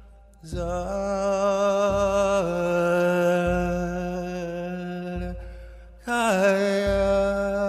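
Meditative music of long, wordless sung notes with a wavering vibrato over a deep low drone. One held note starts about half a second in, steps down in pitch and fades, and a second phrase slides down into a new held note about six seconds in.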